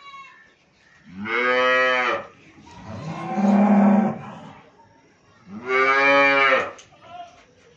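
Young black-and-white calf mooing three times, each call about a second long; the middle call is lower and rougher than the other two.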